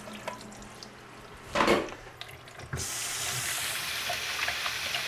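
A short splash about a second and a half in, then a kitchen tap is turned on and runs steadily into a stainless steel sink, rinsing drained canned lentils in a mesh strainer.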